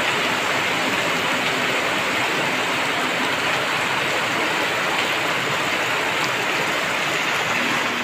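Heavy tropical downpour: a steady, dense hiss of rain that holds at an even level throughout.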